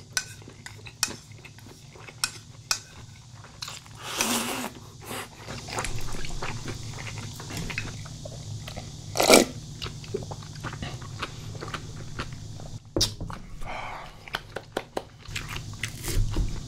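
A person eating close to the microphone: crisp, crunching bites and chewing, with a scatter of sharp clicks and a loud crunch about nine seconds in.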